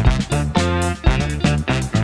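Background music with a steady beat, about three hits a second, and plucked notes between them.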